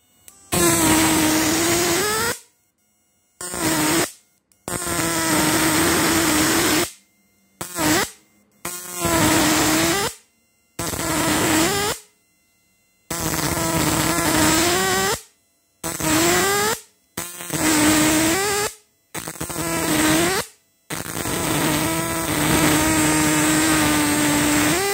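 High-voltage arc from a homemade 12 V electric fishing inverter, its output wires drawn against a steel adjustable wrench. It buzzes and crackles in about eleven bursts of one to two seconds, with silent breaks between them. The pitch of each burst dips as it starts and rises as it cuts off, as the inverter is loaded by the arc.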